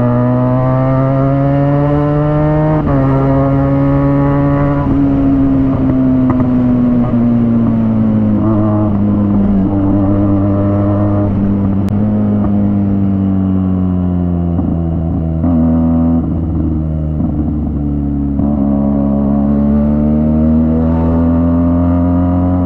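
Motorcycle engine running under way: its pitch climbs over the first few seconds with gear changes about three and five seconds in, then falls as the bike slows and rises again as it picks up speed.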